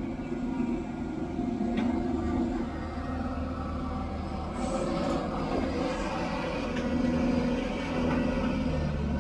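Caterpillar 320 hydraulic excavator's diesel engine running under load while it digs, swings and dumps a bucket of soil into a dump truck. About halfway through, soil rushes out of the bucket into the steel truck bed.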